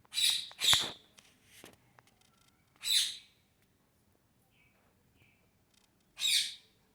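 Parrot squawking: four loud, harsh screeches, two in quick succession at the start, one about three seconds in and one near the end, with a few soft short chirps in between.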